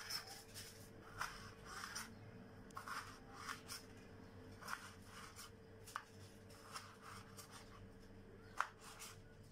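Kitchen knife dicing a tomato on a wooden cutting board: faint, irregular taps of the blade on the board, about one or two a second, with one sharper chop about a second before the end.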